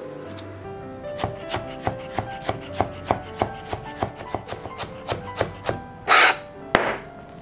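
Chef's knife chopping a carrot into fine julienne on a plastic cutting board: steady knife strokes about three a second, over background music. Near the end, a brief loud scrape and then one sharper knock.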